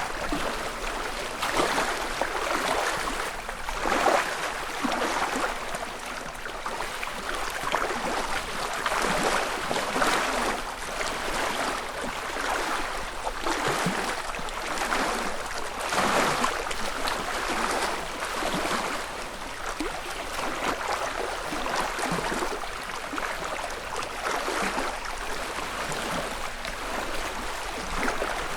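Small lake ripples lapping and splashing softly at the shoreline of a calm freshwater lake, a gentle wash every second or two.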